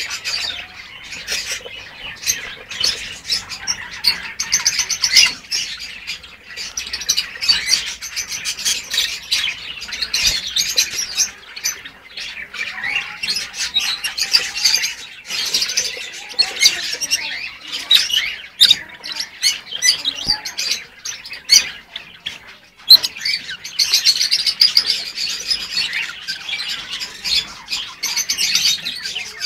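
African lovebirds chirping and chattering continuously in their breeding cages: shrill, overlapping high-pitched calls with sharp squeaks, many birds at once.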